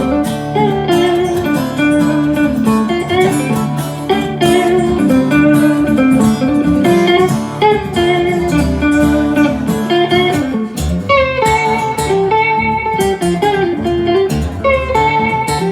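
Live band playing a song, with guitar running lines of notes and holding some longer high notes in the second half.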